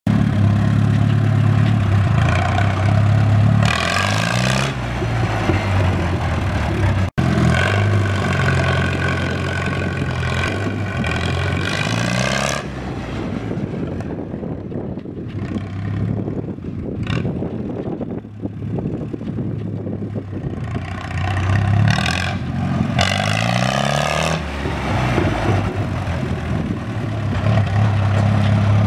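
1938 Allis-Chalmers B tractor's four-cylinder gasoline engine running while the tractor is driven, its speed rising and falling several times.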